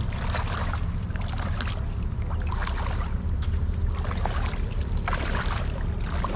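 Shallow water splashing and sloshing in irregular bursts, over a steady low wind rumble on the microphone.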